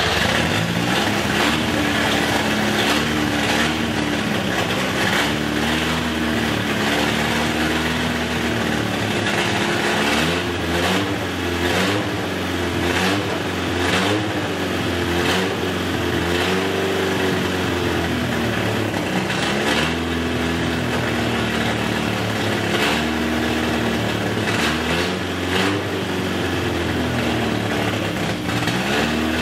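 Retired Chevy Monza race car's engine running just after its first start in years, revved up and down over and over on the throttle to keep it alive. It won't idle on its own, which the owner puts down to a giant vacuum leak.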